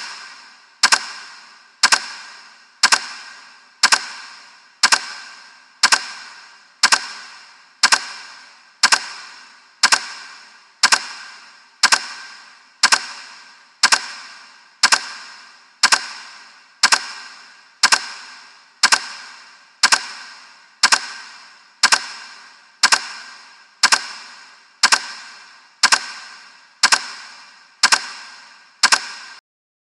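A sharp, ringing tick sound effect repeating once a second, like a clock marking seconds on a timer. Each tick fades away before the next, about thirty in a row, and the ticking stops abruptly near the end.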